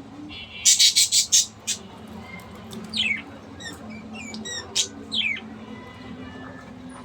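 Birds calling: a quick run of about five loud, harsh squawks near the start, then scattered short chirps that fall in pitch.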